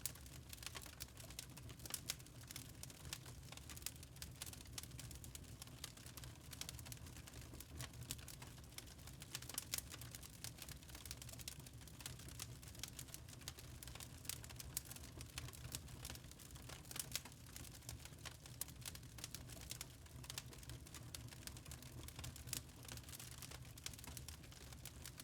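Wood fire in a fireplace crackling, with irregular small snaps and pops over a low, steady rumble.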